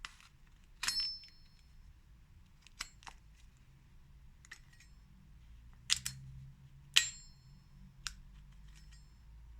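Skittles dropping one or a few at a time onto a plate: sharp, irregularly spaced clicks, several with a brief high ring. The loudest come about a second in and again around six and seven seconds in.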